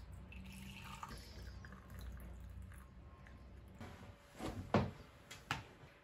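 Hot water poured from an electric kettle into a ceramic mug near the start, followed by a few sharp knocks a little past the middle.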